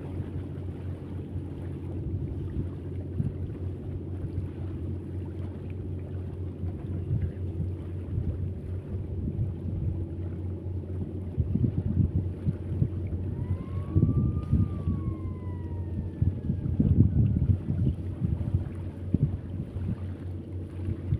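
Wind buffeting the microphone over a steady low motor hum. About two-thirds of the way through comes a single whistle that rises and then falls.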